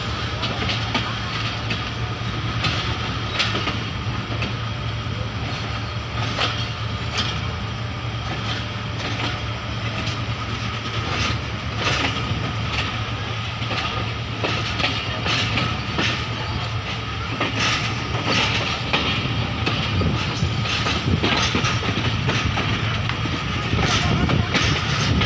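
Passenger coach wheels running over rail joints and switches as the train pulls out of the station, giving irregular sharp clicks over a steady low rumble. Heard from the coach's open doorway.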